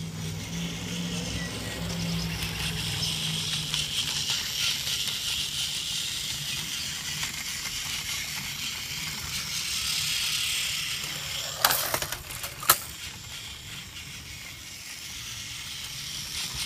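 Motorized Thomas toy train, driven by one AA battery, running along its plastic track with a steady whirring rattle. Two sharp clacks about twelve seconds in are the loudest sounds.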